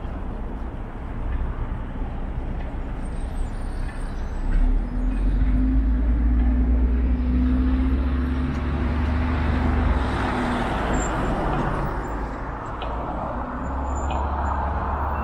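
City street traffic: about four seconds in, a heavy vehicle passes close with a deep, steady engine rumble lasting several seconds, then traffic goes by with a rising hiss of tyres on the road.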